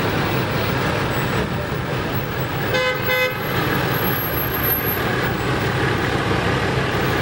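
A vehicle horn gives one short toot about three seconds in, over the steady low rumble of slow-moving parade trucks.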